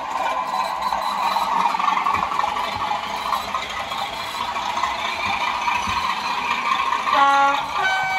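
Sound-fitted model class 37 diesel locomotive running with a steady mechanical drone, then sounding its two-tone horn near the end: a short low note followed by a higher one.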